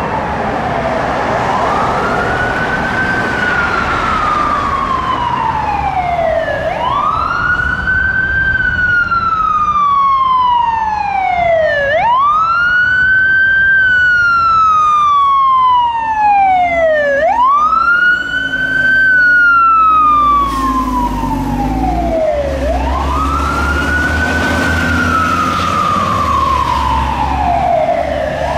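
Fire truck siren on a tiller ladder truck, wailing in repeated cycles: each one rises quickly and then falls slowly, about every five seconds, five times over. The truck's engine runs underneath, louder in the second half as the truck comes close.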